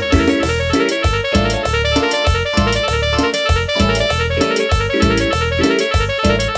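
Music with a keyboard part over a heavy, pulsing bass line and a steady beat of percussion.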